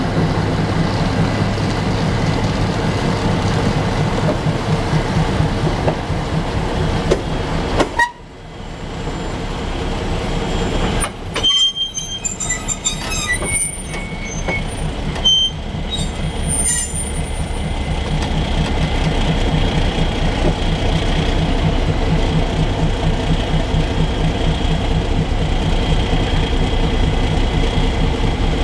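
GE 110-ton diesel-electric switcher running with a steady, rhythmic throb as it moves past hauling a baggage car. The sound drops away sharply about eight seconds in. Short high-pitched metal squeals from the wheels follow, and the engine sound then builds back up to a steady throb.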